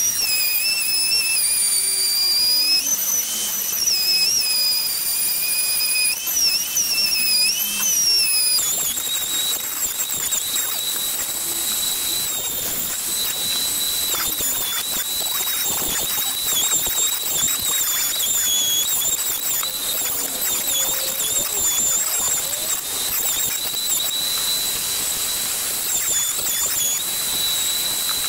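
Sealey variable-speed router running in a cut, routing a recess into a board table top: a high motor whine over the hiss of the bit. The whine wavers with the load for the first several seconds, then settles higher and steadier about eight seconds in.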